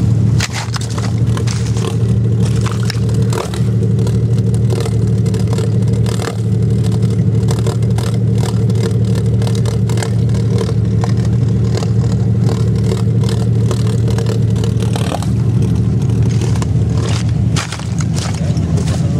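An off-road vehicle's engine running at a steady speed close by, with frequent scraping and crunching noises over it. The sound drops briefly near the end.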